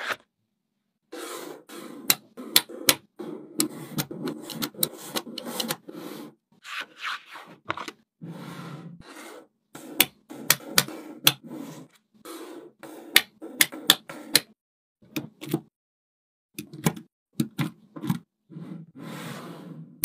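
Small neodymium magnetic balls clicking sharply as they snap together, over rubbing and scraping as strips and panels of the magnets are handled and slid on a hard surface. The clicks come in quick irregular runs, broken by several sudden short silences.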